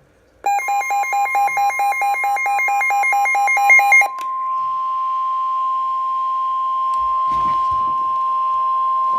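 NOAA Weather Radio's 1050 Hz warning alarm tone: one steady tone that signals a warning is about to be broadcast. For the first few seconds a rapid two-tone beeping warbles over it, then cuts off about four seconds in, leaving the steady tone alone.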